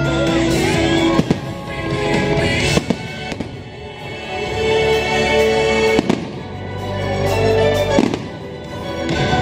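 Fireworks show soundtrack music playing, cut by several sharp firework bangs at irregular intervals.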